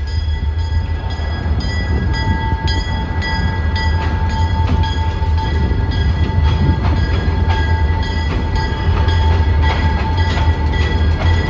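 Diesel locomotive's engine rumbling low and steady as the train approaches, getting a little louder as it rolls onto the steel truss bridge near the end.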